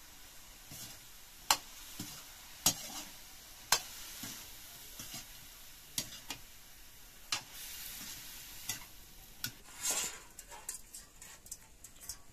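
Metal spatula stirring food in a metal wok (karahi) over a wood fire, with sharp clinks as it knocks the pan every second or so over the sizzle of frying. The sizzling swells briefly about ten seconds in.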